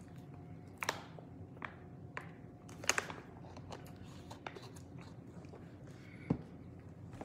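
Plastic water bottle handled while drinking and having its cap screwed back on: scattered faint crinkles and sharp clicks, the loudest about three seconds in and another about six seconds in.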